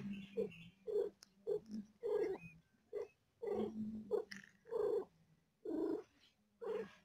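A mother cat in labour purring, with short pitched calls repeating roughly every half second.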